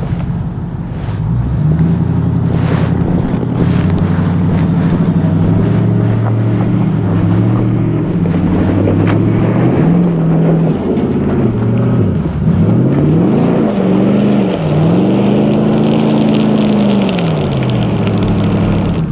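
Ford F-150 Raptor R's 700 hp supercharged 5.2-litre Predator V8 working under load as the truck climbs rocks in two-wheel drive with the rear differential open. The exhaust is likely in its loud Baja setting. The revs jump about a second and a half in, then rise and fall again and again, with several long swells and dips near the end.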